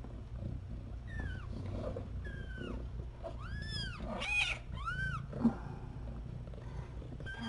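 Kitten mewing high-pitched cries, about seven calls that fall or rise and fall, the loudest about four seconds in, as it is lifted by hand. A short thump about five and a half seconds in.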